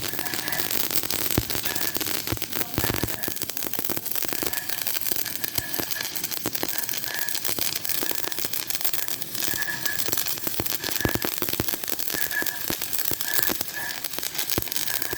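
Electric arc welding: a steady, dense crackle and sizzle of the arc as a bead is laid.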